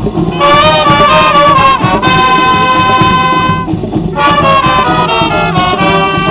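Brass marching band playing a tune in loud phrases, with long held chords and short breaks between phrases, one at the start and another about four seconds in.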